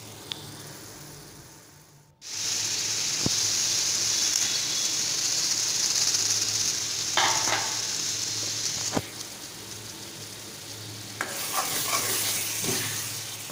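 Paneer cubes and masala frying in oil in a metal kadhai: a faint sizzle, then a loud steady sizzle from about two seconds in that eases after about nine seconds. Near the end a ladle stirs and scrapes against the pan.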